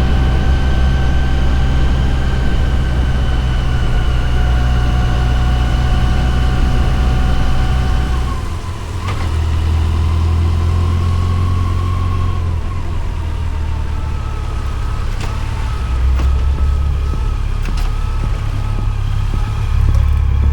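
Yamaha FJR1300's inline-four engine running with a steady low drone. The sound dips briefly about eight seconds in, and a little later a higher tone slides down.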